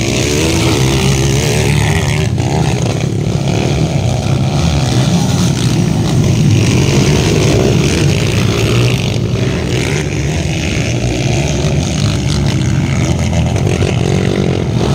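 Kawasaki KLX dirt bikes' single-cylinder four-stroke engines running hard and revving, racing on a motocross track. The pitch rises and falls in the first couple of seconds as the throttle is worked, then settles into a steady drone.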